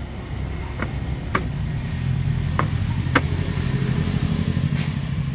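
A low rumble that grows louder about two seconds in, with several short sharp clicks or knocks over the first few seconds.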